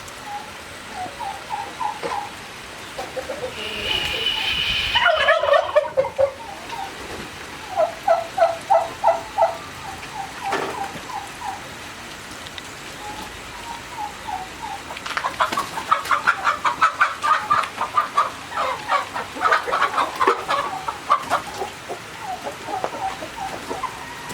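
Several domestic turkeys gobbling: repeated rapid rattling gobbles, the longest run in the second half. A short high-pitched call sounds about four seconds in.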